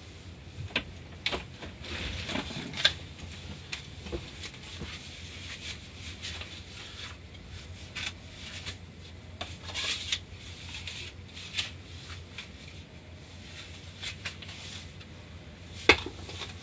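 Automatic car wash heard from inside the car: cloth wash strips and water rubbing and slapping against the body and windshield over a low steady hum, with irregular sharp knocks and one loud thump near the end.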